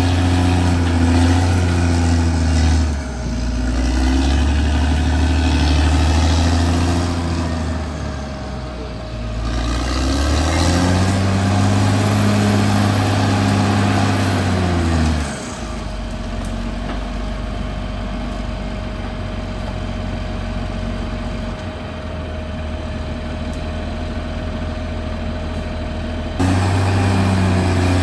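Caterpillar D6R XL bulldozer's diesel engine working under changing load, its pitch dipping and climbing as it pushes. About halfway through the sound drops abruptly to a lower, steadier drone, then jumps back to full engine sound near the end.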